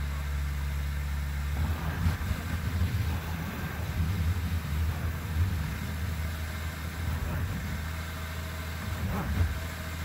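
Subaru Outback's boxer engine running as the car sits stuck in a snowy rut: a steady hum at first, turning rougher and uneven from about a second and a half in.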